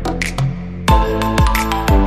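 Electronic background music: held synth notes, and a beat that drops out for the first second, then kick drums return about every half second with light high percussion.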